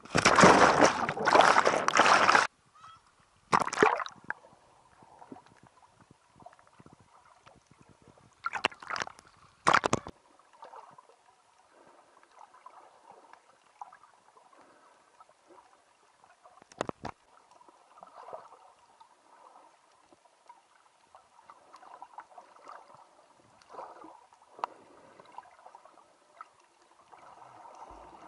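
Seawater splashing over a waterproof camera as it goes under: a loud rush of water for the first couple of seconds, short splashes again around four and ten seconds in. Then faint, muffled underwater noise with a few soft knocks.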